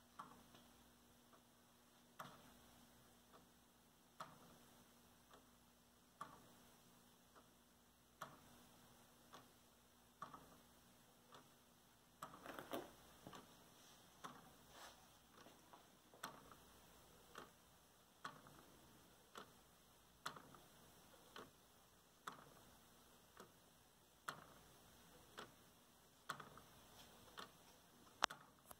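Wooden gear clock running, its escapement ticking about once a second as the wooden escape wheel and pallet click with each swing of the pendulum. A brief, louder clatter comes about halfway through.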